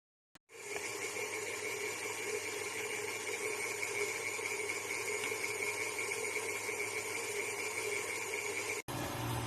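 Angle grinder fitted with a shredder rotating-rod attachment, running steadily with a high, even motor whine. It starts about half a second in and drops out for an instant near the end.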